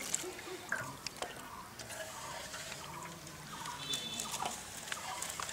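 Domestic fowl clucking in the background, short calls scattered throughout, over the splashing and clicking of cut potato strips being rinsed by hand in a steel basin of water.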